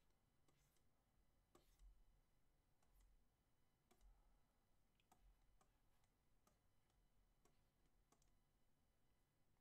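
Near silence broken by faint, sharp clicks about once a second: a stylus tapping and stroking on a drawing tablet.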